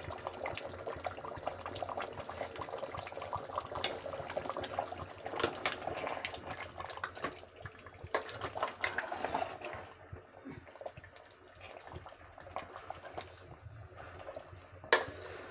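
A metal spoon stirring yogurt into cooked beef trotters in a metal pot: wet, squelching sloshes broken by many small clinks and scrapes of the spoon against the pot. A sharper knock comes just before the end.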